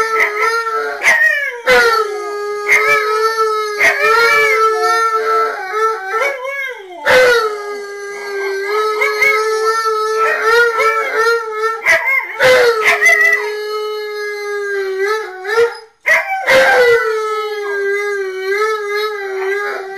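Siberian husky howling in long drawn-out howls that waver in pitch, with a second dog's howl overlapping, the two breaking off briefly every few seconds and starting again.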